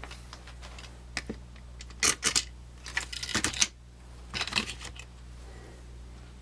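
Swiss Army knives being handled: several short clusters of small, hard clicks and clacks, the loudest about two and three and a half seconds in.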